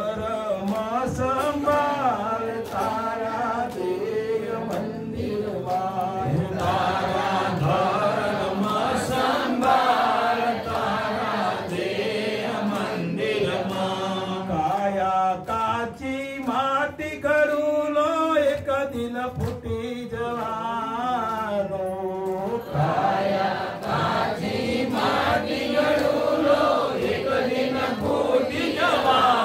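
Men's voices singing a devotional bhajan: a slow melodic chant with wavering, drawn-out notes, amplified through microphones.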